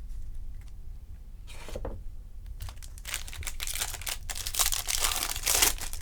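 A trading-card pack wrapper being torn open and crinkled by hand. A short rustle comes first, then a longer run of crackling about halfway through.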